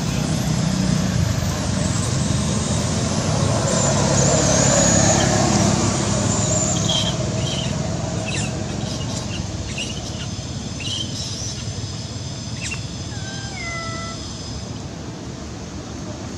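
Motor vehicle on a road passing by, its rumble building to a peak about five seconds in and then slowly fading. A few short, high, sliding calls come near the end.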